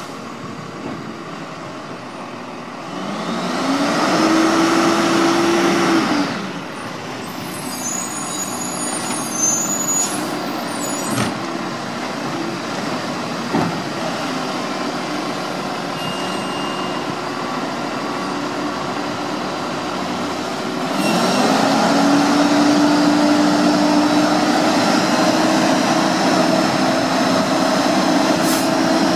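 Automated side-loader garbage truck's diesel engine revving up and holding high to drive the hydraulics, dropping back to idle about six seconds in. A few sharp knocks and a hiss of air follow, and the engine revs up again and holds high from about two-thirds of the way through.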